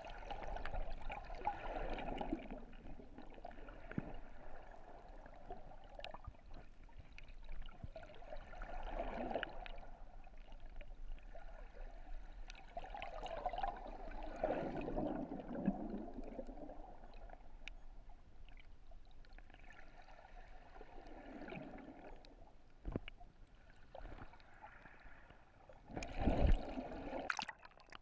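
Breaking surf heard underwater in shallow water over rock and coral rubble: a rushing, bubbling surge of water every five to six seconds, with scattered sharp clicks between them. The loudest surge, with a low thump, comes near the end.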